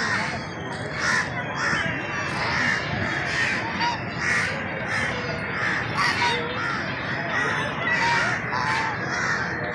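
Ducks quacking: a continuous run of short, harsh calls, roughly two a second.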